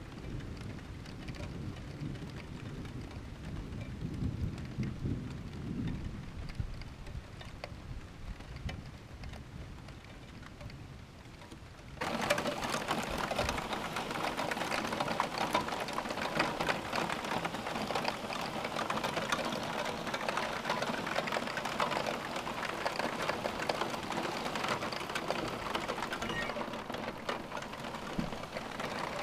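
Thunder rumbling low and dying away over light rain, then about twelve seconds in the sound jumps abruptly to heavy rain falling, a dense steady hiss.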